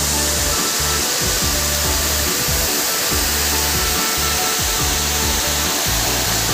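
Waterfall rushing: a loud, steady, even roar of falling water, with music faintly underneath.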